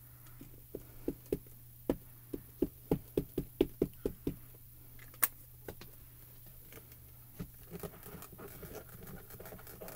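An ink pad is tapped repeatedly onto a rubber stamp: about a dozen light taps, roughly three a second, over the first few seconds. A single sharp click follows, then faint soft handling sounds as the stamp is pressed onto the card.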